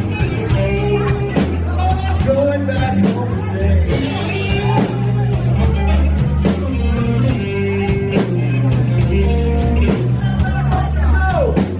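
Live band playing a slow blues: electric guitar lead with bent notes over bass and drums.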